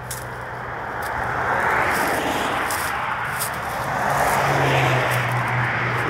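Road traffic: cars passing on the street, their noise swelling twice, about two seconds in and again about five seconds in, over a steady low hum.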